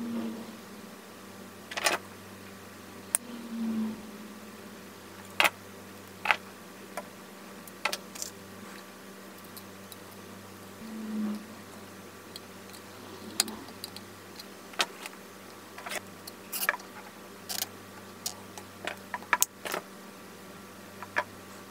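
Irregular small clicks and taps of wires, crimp connectors and terminal screws being handled and fitted into the terminal block inside a bench grinder motor's metal junction box, with a few soft low thuds among them. A faint steady hum lies under it.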